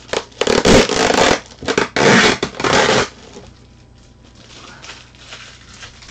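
Yellow packing tape being peeled and ripped off plastic air-column packaging, in several loud pulls over the first three seconds, then fainter handling noise.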